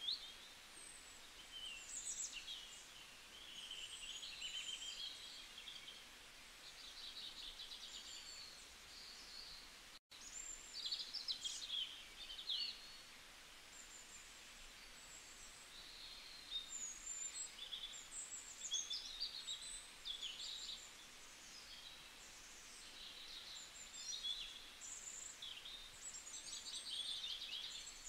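Small birds chirping and trilling, faint, with many short high calls and quick trills over a light hiss; the sound cuts out for an instant about ten seconds in.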